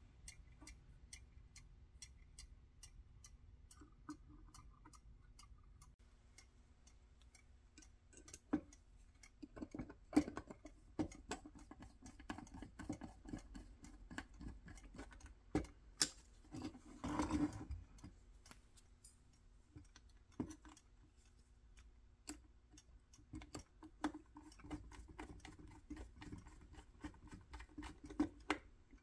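Spring-wound clockwork timer of a 1960s Duncan parking meter, ticking fast and evenly. Over it come irregular metal clicks, scrapes and clunks from the meter's cover being fitted and screwed down with a screwdriver, loudest around the middle.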